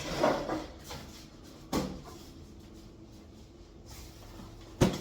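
Handling noises: a rustling clatter at the start, then two sharp knocks, the second and loudest near the end, as things are moved and set down.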